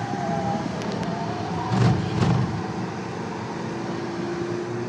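Seat Leon 1.4 FR's turbocharged four-cylinder petrol engine and tyre and road noise heard from inside the cabin as the car is driven hard on track. A couple of knocks come about two seconds in, and a steady tone rises slowly in pitch through the second half as the car accelerates.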